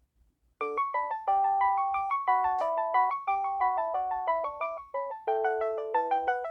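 Vtech CS6619 cordless phone ringing with its tone number 10: a quick chiming melody with several notes sounding at once. It starts about half a second in and breaks briefly about five seconds in.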